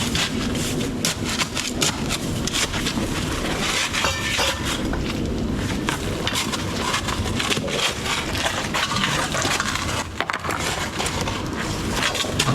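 Continuous clatter of hand tools knocking and scraping on broken brickwork and rubble, many short knocks and crunches.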